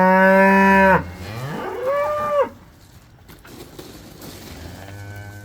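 Cattle mooing: a long, loud moo that cuts off about a second in, a shorter, higher call a second later, then a fainter moo starting near the end.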